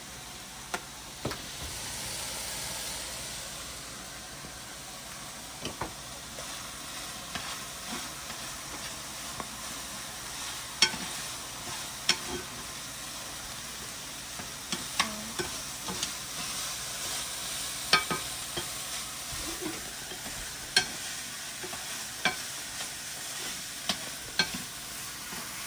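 Seasoned meat frying and sizzling in a pan as it is stirred, with irregular clicks and scrapes of a utensil against the pan.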